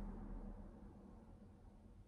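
Near silence: faint room tone with a soft hiss and low rumble, fading away.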